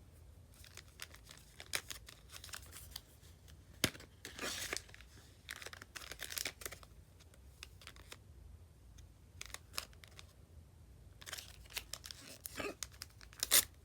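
Irregular crinkling and tearing of nail polish strip packaging being handled, with scattered clicks and short rustling bursts.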